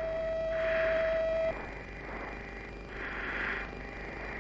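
Mirage 2000 cockpit audio on approach: a steady tone that cuts off about a second and a half in, over hiss, with soft rushes of noise recurring about every two and a half seconds.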